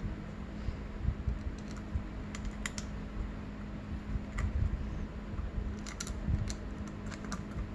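Light, scattered metallic clicks and ticks as small bolts and the rubber intake boot are handled and fitted by hand to the reed intake of a two-stroke dirt-bike cylinder, with a cluster of clicks about six seconds in, over a steady low hum.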